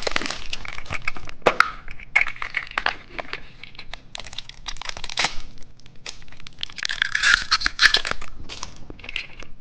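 Plastic candy packaging being crinkled and torn open, with a run of irregular sharp crackles and rustles as a surprise candy egg is unwrapped.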